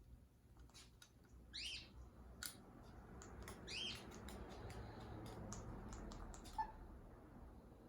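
Black-headed caique giving two short, high chirps, about one and a half and about four seconds in, among scattered light clicks.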